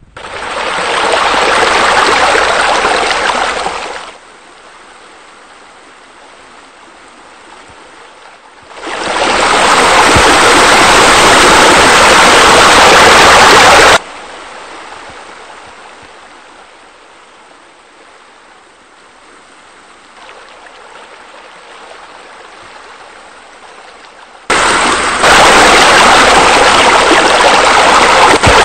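Water rushing and splashing, as from a rock waterfall spilling into a bubbling spa. It is loud in three spells of about four to five seconds each: at the start, from about nine seconds, and from about twenty-four seconds. Quieter flowing water runs between them.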